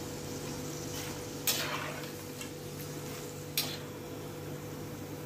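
Metal slotted spoon and wire strainer knocking against a steel kadhai while fried peanuts are lifted out of hot oil: two sharp metal strikes, about one and a half and three and a half seconds in, the first trailing off over about half a second. Under them the oil sizzles faintly, with a steady low hum.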